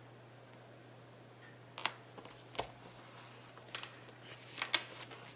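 Cardstock and paper being handled and pressed down on a craft table: a few short taps and light paper rustles, starting about two seconds in, over a faint steady hum.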